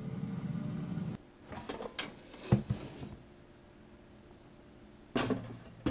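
Air fryer running with a steady fan hum that cuts off suddenly about a second in, followed by several plastic clacks and knocks as the basket drawer is pulled out and handled.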